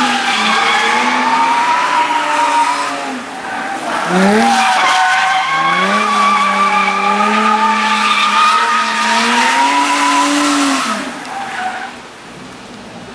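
Jaguar F-Type's supercharged 3.0-litre V6 held at high revs through a drift, with tyres squealing and sliding on the tarmac. The revs hold steady, dip about three seconds in, then climb and hold again for several seconds before falling away near the end.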